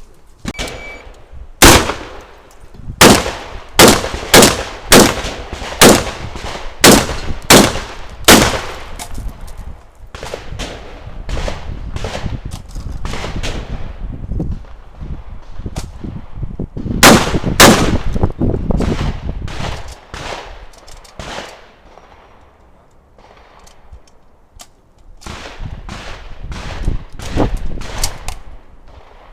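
Shotgun shots fired in quick strings during an IPSC stage: about eight loud reports in roughly seven seconds, then a pause with fainter shots, another loud pair a little past halfway, and more scattered shots near the end.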